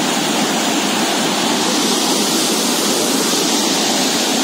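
Muddy floodwater rushing and churning in a fast torrent, a loud, steady rush of water.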